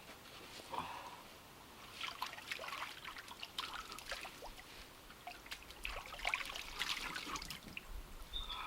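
Water of a small bush creek trickling and splashing, in uneven spells of small splashes that grow busier twice.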